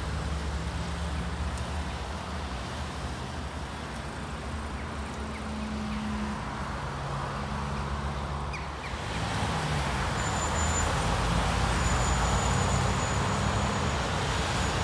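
Road traffic on a multi-lane road: a steady engine hum and tyre noise from passing cars, growing louder about nine seconds in.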